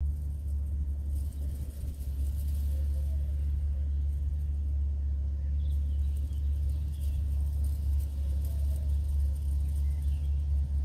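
A steady low rumble with a few faint, short high chirps about halfway through and again near the end.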